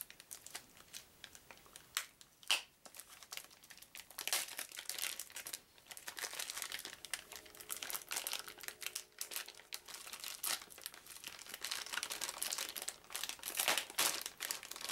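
Clear plastic packaging bags being handled and pulled open, crinkling in irregular crackles that grow busier and louder from about four seconds in, with one sharp crack about two and a half seconds in.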